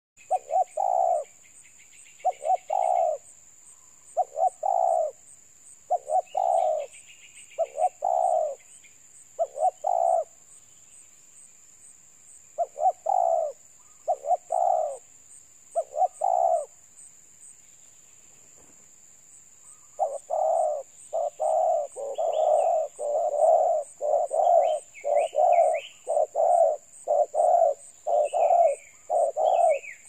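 Spotted dove cooing: repeated short coo phrases a second or two apart, pausing for a few seconds a little past halfway, then coming faster and almost without a break in the last third.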